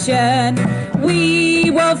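A woman singing a slow melody, holding long, wavering notes. An acoustic guitar accompanies her, and her voice is amplified through a small speaker.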